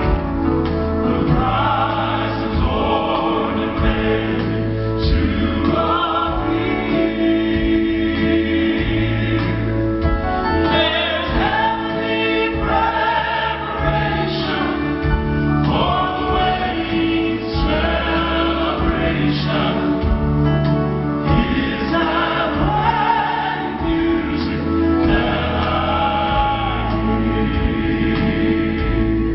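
Male Southern gospel vocal ensemble singing together into microphones, backed by keyboard and a walking bass line, heard live through the hall's PA.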